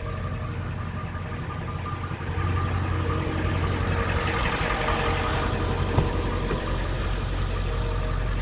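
A 2000 Ford E350's 7.3-litre turbo diesel V8 idling steadily, a low even hum that gets louder a couple of seconds in. A single sharp click comes about six seconds in.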